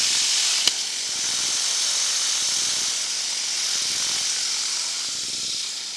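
Steady hiss with a single sharp click less than a second in.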